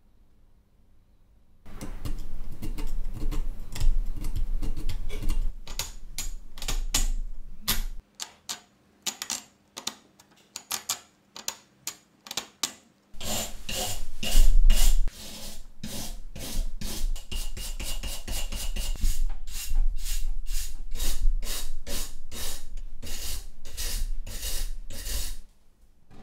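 A hand brush scrubbing loose rust off an old iron axe head in quick back-and-forth scraping strokes, several a second. The strokes thin to a few scattered scrapes in the middle, then pick up again and stop shortly before the end.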